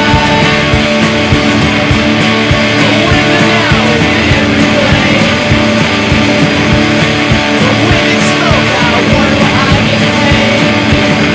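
Loud rock music with guitar and a steady drum beat.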